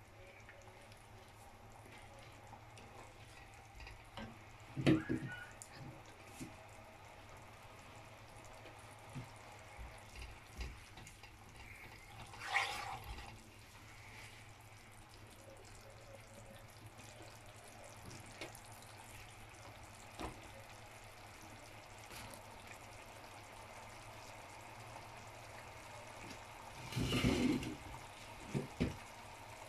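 Faint sound of water heating toward a boil with beetroot and onion in a nonstick pan, with a wooden spatula stirring and scraping the pan a few times: about five seconds in, around twelve seconds, and again near the end. A steady low hum runs underneath.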